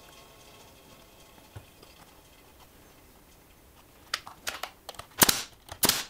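Pneumatic brad nailer driving brads into small wooden rails: two sharp shots about two-thirds of a second apart near the end, the loudest sounds here, after a few lighter clicks and knocks of the work being positioned. The first few seconds hold only faint room tone.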